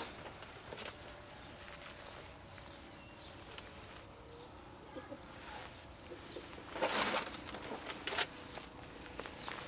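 Outdoor garden ambience with faint bird chirps. About two-thirds through there is a brief rustle, followed a second later by a sharp knock.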